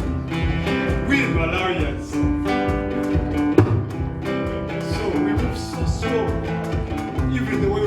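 Live acoustic music: a guitar playing a steady, evenly strummed rhythm.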